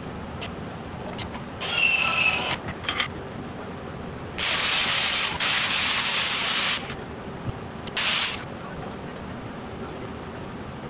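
Angle grinder grinding steel in three runs: a short burst near two seconds with a whine from the motor, a longer stretch of grinding from about four and a half seconds to nearly seven, and a brief touch about eight seconds in.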